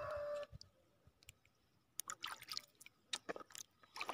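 Water splashing and sloshing from wading through shallow reservoir water among reeds, in three short bursts about a second apart. A rooster's crow trails off in the first half second.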